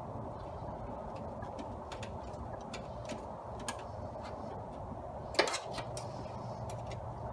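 Scattered light clicks and ticks of hand work on the planer's metal parts, with one sharper, louder knock about five seconds in, over a steady background hum.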